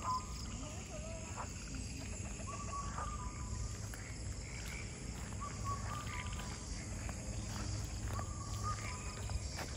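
A bird in dense forest calling with a short, steady-pitched call that drops slightly at its end, repeated every two to three seconds, over faint steady forest background hiss.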